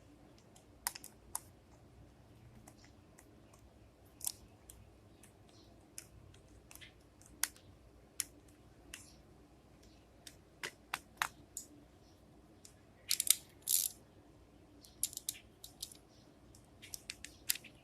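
Scattered light clicks and ticks of a screwdriver and small parts as screws are driven into the carburetor assembly of a small mower engine, with a quick cluster of clicks about thirteen seconds in.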